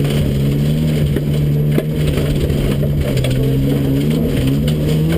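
Ford Fiesta XR2 rally car's engine running hard at fairly steady high revs, heard from inside the stripped cabin, with a gritty crackle of mud and stones hitting the car's body and underside.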